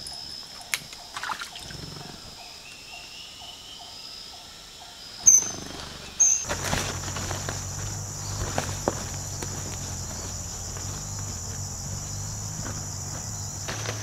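Forest ambience dominated by insects droning steadily at a high pitch, with a faint regular ticking and a few sharp clicks. About five seconds in there is a sharp loud sound, and soon after the ambience changes abruptly to a louder, higher insect drone over a low steady hum.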